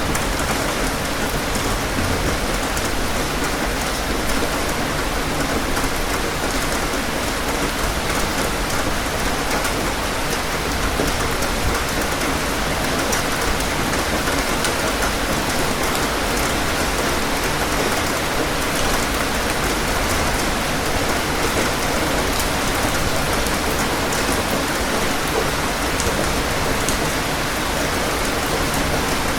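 Steady rain falling, a dense even patter of drops on surfaces that holds at the same level throughout.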